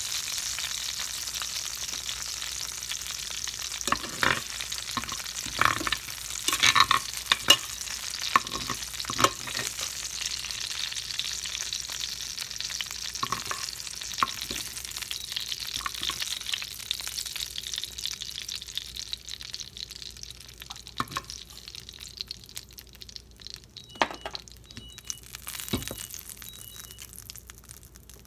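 Oil sizzling in a stainless steel skillet while a metal spoon clinks and scrapes against the pan, scooping out fried peppers and onions. The clinks come thickest in the first third. The sizzle dies down toward the end.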